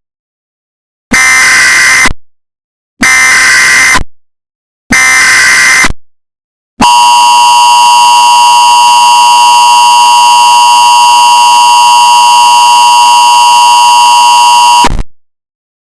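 Emergency Alert System tones: three loud one-second bursts of screeching digital data (the SAME header), then the harsh two-tone EAS attention signal, held steady for about eight seconds before it cuts off suddenly.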